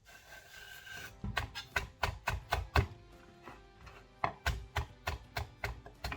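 Kitchen knife chopping spring onions on a cutting board: a quick run of sharp taps, several a second, starting about a second in, over background music.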